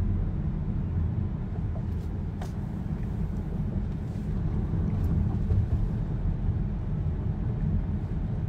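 Steady low road and engine rumble inside the cabin of a moving car, with a couple of faint ticks.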